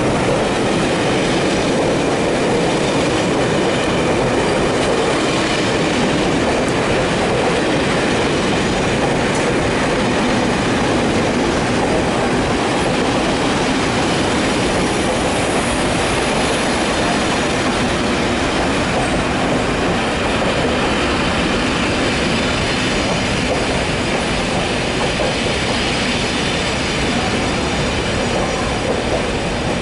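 Heritage passenger coaches of an arriving train rolling past along the platform. A steady rumble of wheels on the rails eases slightly near the end.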